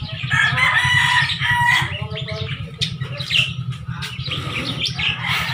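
A rooster crowing: a pitched, drawn-out call in the first couple of seconds, over a steady low hum.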